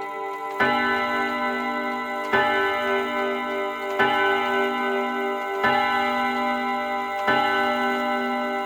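Karl Lauffer mantel clock striking: five slow strokes about 1.7 s apart, each ringing on into the next.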